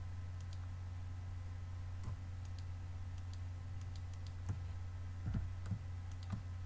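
Scattered clicks of a computer keyboard and mouse, with a few louder knocks about five seconds in, over a steady low hum.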